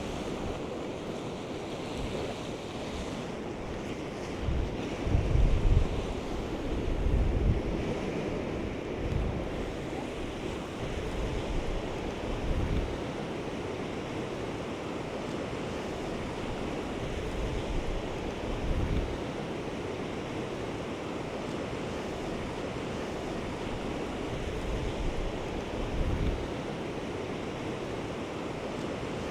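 Ocean surf washing against a rocky shore in a steady wind, with gusts buffeting the microphone every few seconds.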